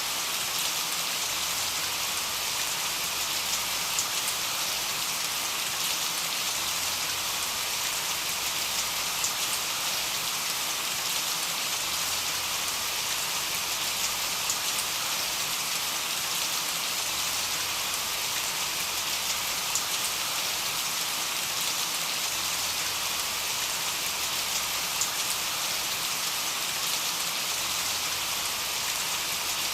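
Monsoon rain falling steadily, an even hiss of rain on surfaces with scattered sharper drop ticks.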